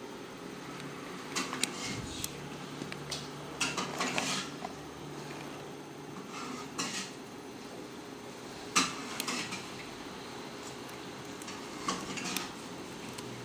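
Irregular small clicks and scrapes of wires being handled and pushed into a plastic solderless breadboard, the sharpest click about nine seconds in, over a steady low hum.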